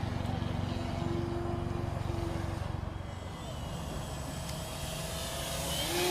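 Radio-controlled model biplane buzzing in flight as it loops: the motor sound drops away around the middle, then grows louder again toward the end with its pitch rising as the plane comes back around.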